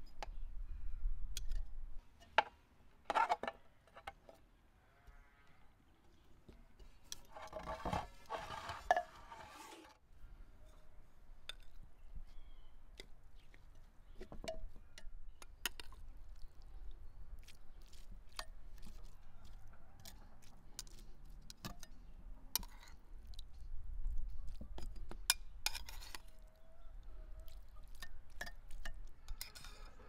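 Metal tongs clicking and clinking against a metal bowl, a plate and a clay pot as cooked beef tail and onions are moved into the pot, with soft wet sounds of the food. A brief louder burst with a pitched sound comes about eight seconds in.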